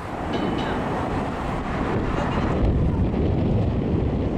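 Wind buffeting the microphone over a low, steady rumble.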